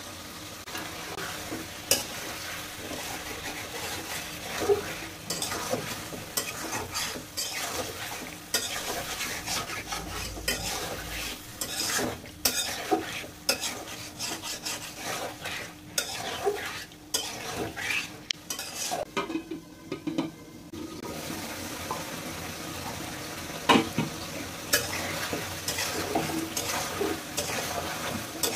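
Bone-in chicken pieces sizzling in hot oil in a metal kadai while a metal spatula stirs them, with frequent scrapes and clinks against the pan.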